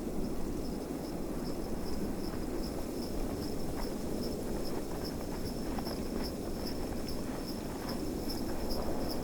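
Sleigh bells jingling in a steady rhythm, about four shakes a second and growing louder, with faint horse hoof clops of a pulled sleigh, over the low wind of a snowstorm.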